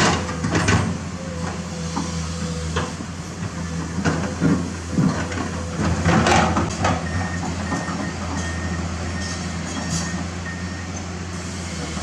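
Komatsu PC210-10 excavator's diesel engine running steadily while the machine digs, with the bucket scraping and knocking on dirt and stones several times.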